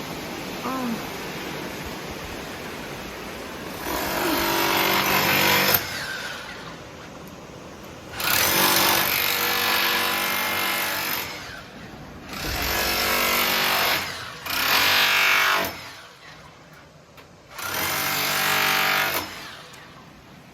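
Electric demolition hammer running in five separate bursts of one to three seconds each, breaking something apart.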